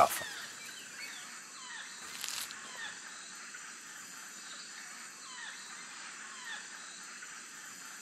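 Rainforest ambience: a steady high hiss of insects with repeated short, falling chirping calls from forest animals, and a brief rustle of foliage about two seconds in.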